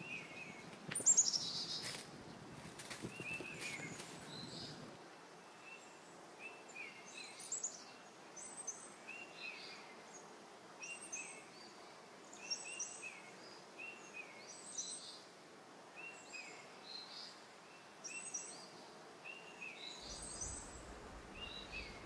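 Plastic stretch wrap crinkling as it is pulled off a cardboard box in the first few seconds, loudest about a second in. Then a small bird chirps over and over, short chirps about once a second.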